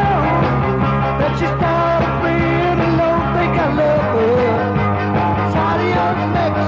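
Rock and roll record playing from a sound-system dance cassette recording: a full band with a steady bass and a melody line that bends and slides in pitch.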